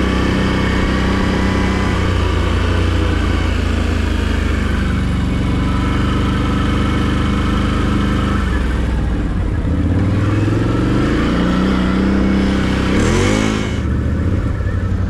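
Quad bike engine running while riding, its pitch rising and falling as the throttle opens and closes. About thirteen seconds in there is a short burst of noise with a rising pitch.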